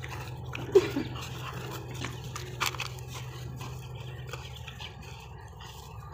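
Pit bull dog gripping and pulling on a leather leash in a tug-of-war, with scattered small scuffs and clicks and a short pitched yelp-like sound about a second in.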